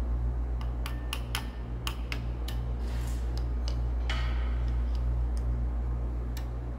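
Sharp metal clicks and taps of a hand tool working in a Caterpillar 3406B engine block while fitting cam followers, mostly in the first half, with a couple of short scrapes. Underneath runs a steady low machine hum.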